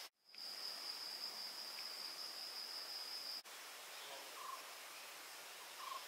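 Forest ambience with a steady, high-pitched insect trill that stops abruptly about three and a half seconds in. After that a softer hiss of forest background remains, with two brief faint calls.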